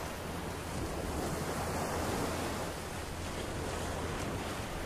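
Small surf breaking and washing up the sand, one wave swelling about a second or two in.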